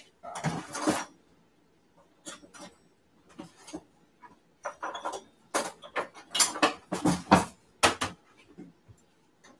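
Metal clatter from a countertop air fryer oven being handled: its door, rack and metal tray knocked and slid about with oven mitts. A string of irregular sharp clanks and knocks, thickest in the second half.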